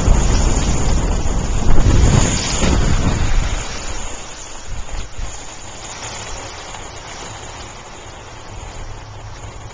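Wind buffeting a camcorder's microphone: a loud, low rush for about the first three and a half seconds, then dropping to a softer, steady hiss.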